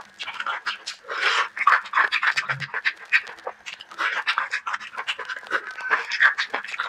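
Close-miked eating sounds from a mouthful of noodles: wet chewing and slurping, with many quick mouth clicks and smacks and a louder slurp about a second in.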